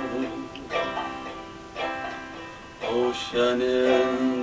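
Banjo picked slowly, single plucked notes struck about once a second and left to ring.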